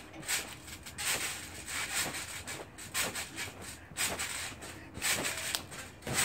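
Trampoline springs and mat creaking and rubbing with each bounce, a short rasping burst about once a second.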